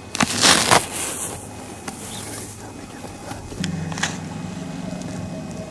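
A loud burst of rustling noise in the first second, then a steady low mechanical drone that sets in a little past halfway.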